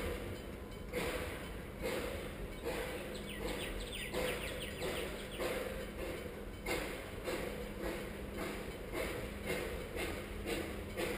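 Narrow gauge NA class steam locomotive standing with steam up, pulsing in a regular beat about four times every three seconds over a steady hum. Birds chirp briefly about three to five seconds in.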